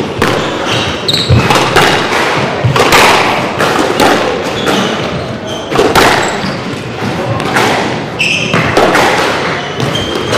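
Squash rally: the ball cracks off rackets and the walls in sharp, irregular hits, and shoes squeak on the wooden court floor. It all echoes in a large hall.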